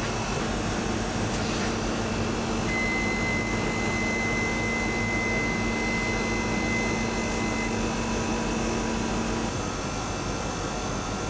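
Steady fan-like hum of bakery equipment and ventilation, with a low hum that drops out near the end. A thin, steady high tone sounds for about five seconds in the middle.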